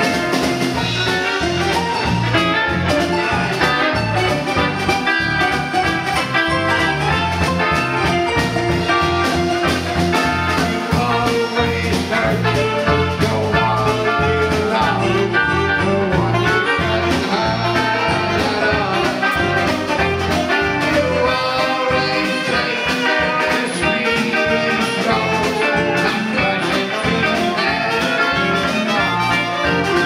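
Live band playing a jazzy blues number, with electric guitar, keyboard, drums and saxophone, and a man singing.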